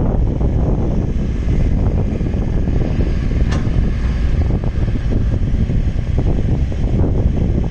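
Volvo EC18 mini excavator's diesel engine running steadily, with a single sharp click about three and a half seconds in.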